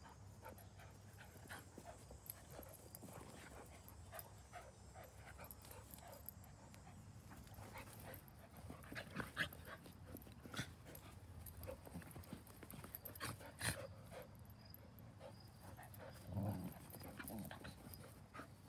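Two dogs play-wrestling: panting and scuffling, with scattered sharp clicks that come thickest in the middle, and a short low growl near the end.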